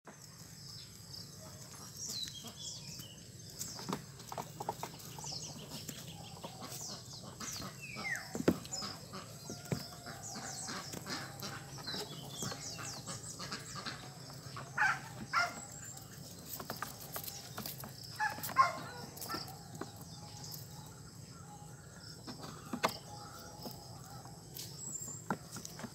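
Birds chirping and fowl clucking, with a few louder calls and sharp knocks scattered through.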